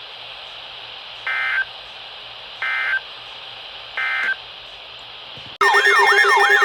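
Three short Emergency Alert System end-of-message data bursts, buzzy digital tones about 1.3 seconds apart, which mark the end of the broadcast warning. About five and a half seconds in, a much louder warbling, siren-like alarm tone starts.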